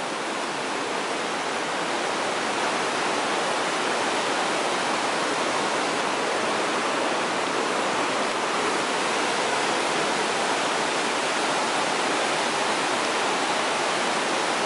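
Niagara River white-water rapids rushing: a steady, even noise of churning water.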